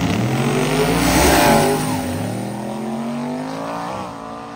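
Two drag cars launching off the starting line and accelerating hard down the strip. The engines climb in pitch, drop at a gear shift about two seconds in, then climb again, and the sound fades as the cars pull away.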